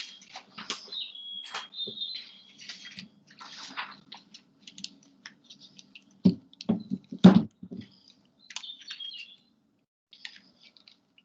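A sound collage of small clicks, scratches and high chirps over a faint low hum, with a cluster of louder knocks about six to seven and a half seconds in.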